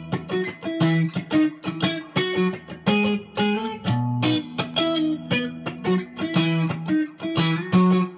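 Fender Telecaster electric guitar picking a rhythmic figure in octaves, about three notes a second, each ringing briefly into the next.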